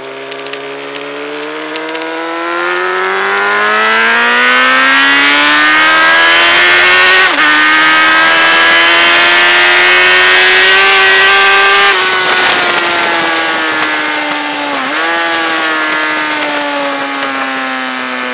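Motorcycle engine at full throttle on a race track: the revs climb with a brief upshift dip about seven seconds in, hold high along the straight, then fall away as the throttle closes, with a quick downshift blip about fifteen seconds in. Wind rush is loudest at top speed.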